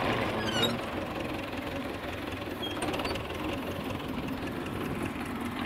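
Tractor with a front loader, its engine running steadily.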